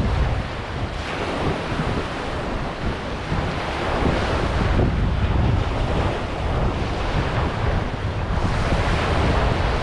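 Ocean surf washing onto a beach, a continuous hiss of breaking waves that swells about halfway through, with wind buffeting the microphone as a low rumble.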